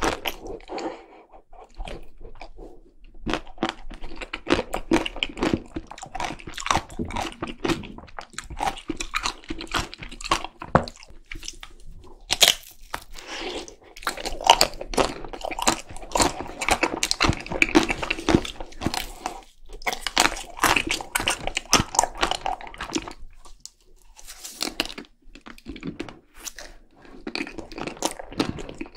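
Crunching and chewing of a chocolate-coated ice cream bar, the crisp chocolate shell crackling through repeated bites with brief pauses between them.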